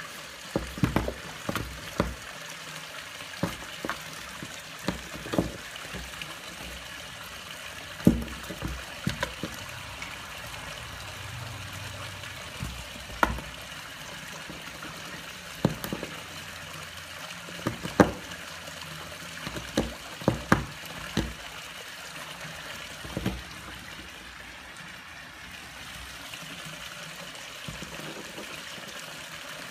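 Steady trickle of water from the swimming pool, with scattered sharp knocks and bumps of a kitten moving about inside and against a cardboard box.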